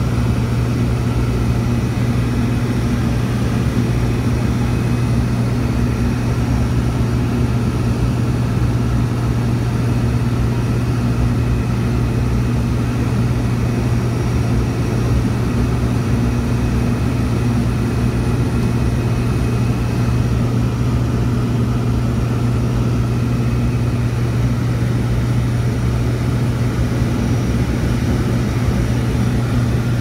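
Propeller airplane's engine and propeller droning steadily in cruise, heard from inside the cabin: a constant low hum with a rushing haze over it.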